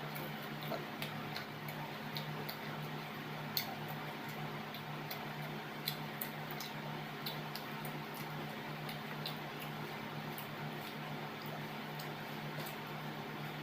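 Someone eating: irregular small clicks over a steady low hum, with two sharper clicks about three and a half and six seconds in.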